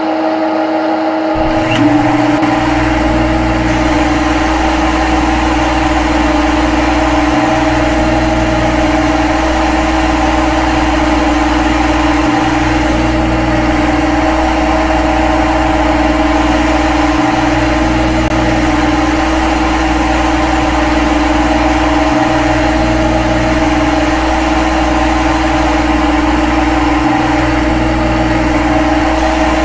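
Simulated CNC lathe machining sound from a lathe-simulator program: a steady mechanical hum of the spindle turning and the tool cutting during a G72 facing cycle. A low rumble joins about a second and a half in, and the sound dips briefly about every five seconds.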